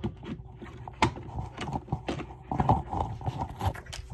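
Irregular plastic clicks and knocks from a FireX smoke alarm being handled just after its battery has been fitted.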